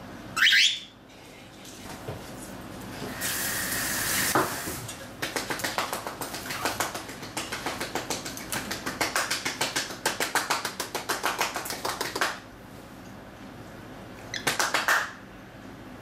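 Cockatiel gives a short rising chirp, then beats its wings in place in a fast, even run of whooshing strokes for about seven seconds while holding its spread-wing pose. Another short call comes near the end.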